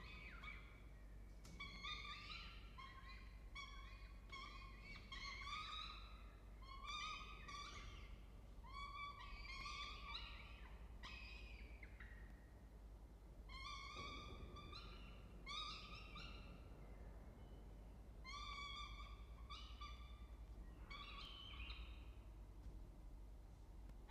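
Peregrine falcon chicks begging for food as they are fed, with short, high, repeated calls, several a second, in runs broken by brief pauses.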